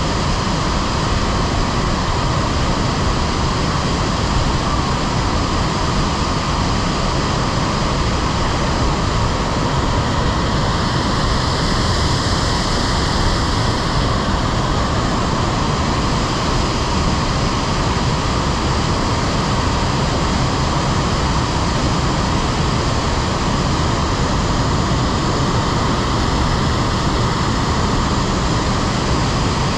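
Water pouring over a large artificial waterfall, a loud, steady rush without a break.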